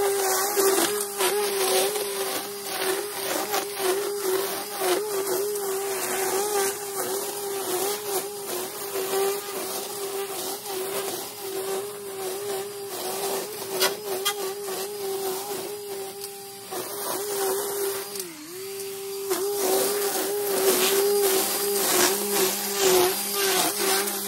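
Battery-powered electric string trimmer running with a steady high whine, its line whipping and cutting grass with a crackling rasp. The whine wavers as the line bites and sags briefly under load about three quarters of the way in. It is fainter in the middle and louder again near the end.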